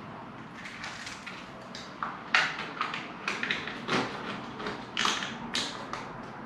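Irregular taps, clicks and short scrapes of plastic glazing packers being worked into a UPVC window frame, the sharpest about two and a half seconds in.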